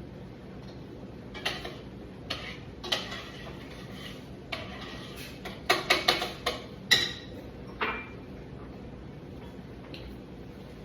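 Kitchen pots and utensils clinking and knocking in a string of separate sharp clatters, thickest about six seconds in.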